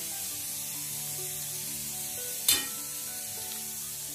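Pressure cooker on a gas stove hissing steam steadily as it builds toward its next whistle, with soft background music underneath. A short louder burst of noise comes about two and a half seconds in.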